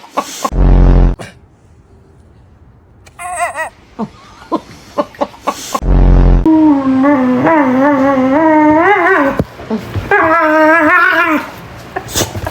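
Dog making strange howling, wavering cries: a short one, then a long drawn-out one of about three seconds and another of more than a second, rising and falling in pitch. Two loud, short, deep sounds come near the start and about halfway through.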